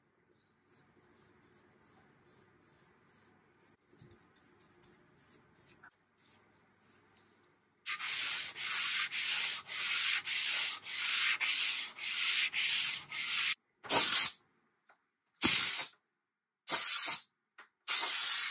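Faint brush strokes on wood, then an orange hand-held abrasive pad rubbed back and forth over a flat wooden panel along the grain, loud, about two strokes a second. The rubbing then slows to four separate strokes.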